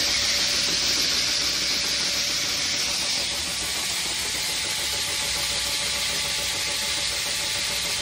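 Wheat seed pouring from an auger spout into a grain drill's seed box: a steady hiss of falling seed over an engine running steadily to drive the auger. The hiss eases a little about three seconds in.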